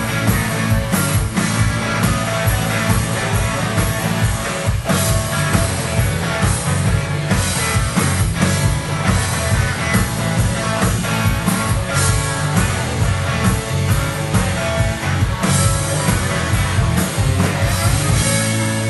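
Live rock band playing loud: two electric guitars, bass guitar and a Pearl drum kit with Zildjian cymbals, driving along with a steady beat. Right at the end the drum hits stop and a held chord rings on.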